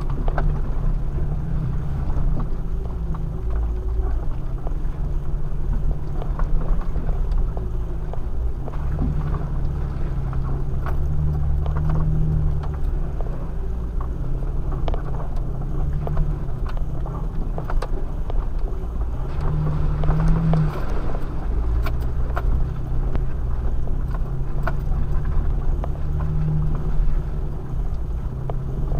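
Jeep engine and drivetrain driving slowly over a rough, muddy dirt trail, heard from inside the cab. A steady low drone swells a few times as the throttle is worked, with scattered light knocks and rattles.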